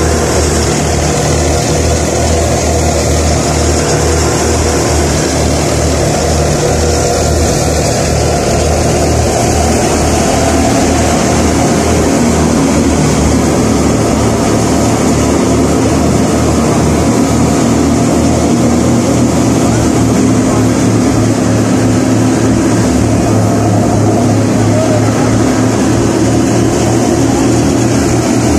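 Wheat thresher running at full work: a loud, steady mechanical drone with a deep engine hum underneath.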